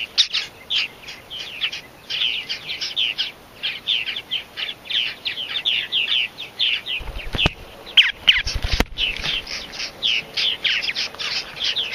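Purple martins chirping in quick, continuous short calls, several a second. A few low thumps come about seven to nine seconds in.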